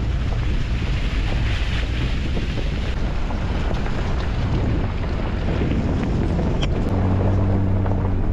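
Jeep Wrangler JL driving: steady road and tyre noise with wind buffeting the microphone, and a low engine hum coming up about seven seconds in.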